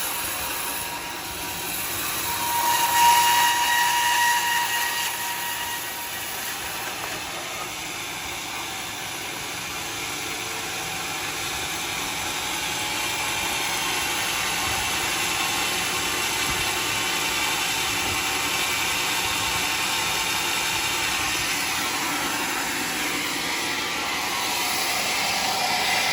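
Sawmill saw cutting through a bayur log: a steady machine noise, with a louder high whine a few seconds in.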